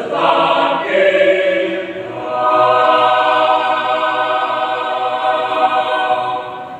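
Mixed choir singing, moving through a few notes and then holding one long chord from about two and a half seconds in until it stops near the end.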